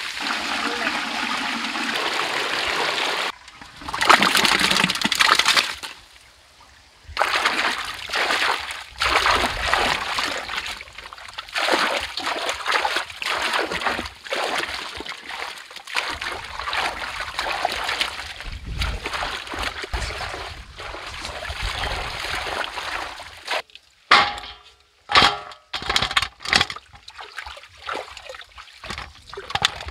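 Water gushing from a pipe and splashing onto stone paving, followed by a run of splashing and sloshing water with short breaks, and a few sharp splashes near the end.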